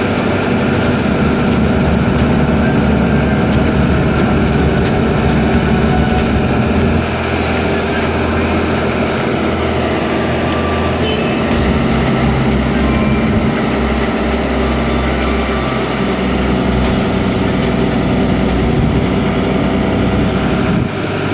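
Diesel engine of a Kato SR-250R rough-terrain crane running steadily under load while it hoists bulk bags, its engine note shifting down and up a few times as the lift is worked.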